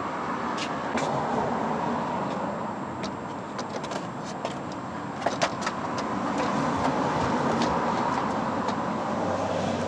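Light clicks and knocks of the radiator fan assembly and hand tools being handled as the fan is fitted back into the engine bay, with a cluster of sharper knocks about five seconds in, over a steady background hum.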